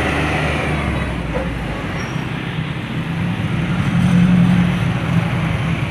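Heavy diesel trucks driving past, engines running with tyre and road noise, growing louder about four seconds in as one comes close.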